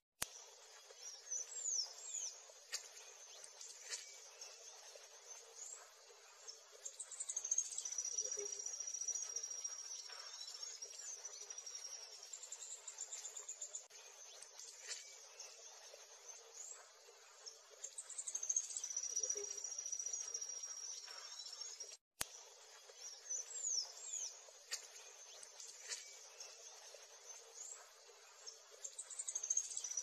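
Nature soundscape of insects trilling steadily at a high pitch, with small birds chirping in short rising and falling calls. The sound drops out for an instant twice, once at the very start and again about two-thirds through.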